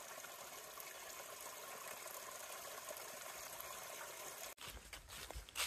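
A small trickle of water running over rocks and roots into a shallow pool, a faint, steady splashing. About four and a half seconds in it gives way to footsteps in dry leaf litter.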